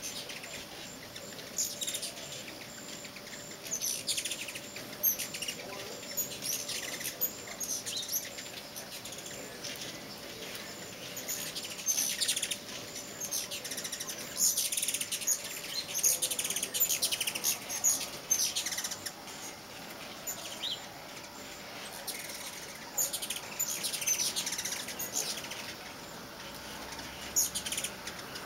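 Many ruby-throated hummingbirds at feeders give a quick, uneven stream of short, high chipping and chattering calls, the squabbling chatter of birds chasing one another off the feeding ports. The calls are thickest in the middle stretch.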